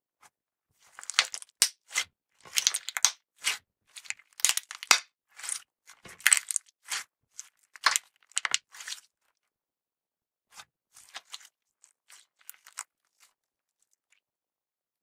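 Clear purple slime with glitter and sequins being pressed and squeezed in the hands, giving off clusters of sharp wet clicks and pops. The pops come thick for the first nine seconds, thin out to scattered ones, and stop near the end as the slime is stretched.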